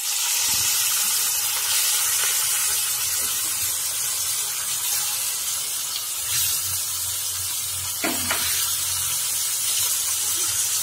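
Pieces of fish sizzling steadily as they fry in hot mustard and groundnut oil in a pan, with a brief knock about eight seconds in.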